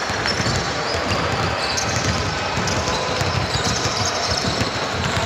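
Basketball bouncing on an indoor court during play, over a steady background din.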